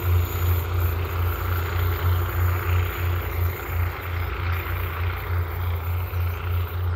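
Diesel railcar's engine working as the set pulls away, a low throb pulsing about three times a second and fading a little.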